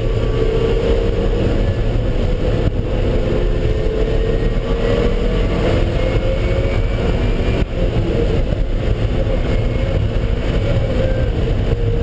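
Car engine running hard at track speed, with heavy road and wind noise. Its note rises and falls gently as the throttle is worked, with a brief dip about three quarters of the way through, where the throttle lifts or a gear is changed.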